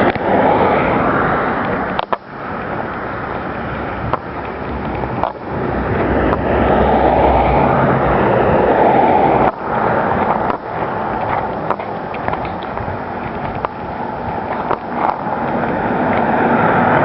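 Steady rushing noise that swells and fades every few seconds, with a few sharp clicks: wind and handling noise on a handheld camera's microphone while walking outdoors.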